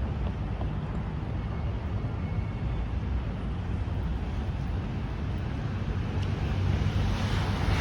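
Steady low rumble of vehicle engines with a hiss of wind or passing traffic, growing a little louder near the end.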